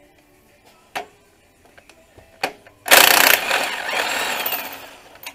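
Power impact wrench running for about two seconds, spinning out one of the 17 mm engine-mount bolts, then winding down. It comes after two sharp clicks of the tool on the socket.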